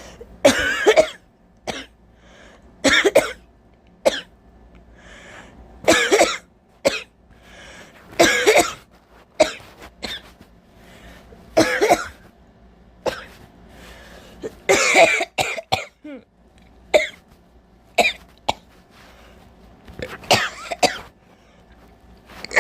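A person coughing repeatedly in a fit, with loud coughs coming about every two to three seconds. A chesty cough bringing up phlegm, which she puts down to the frequent rain.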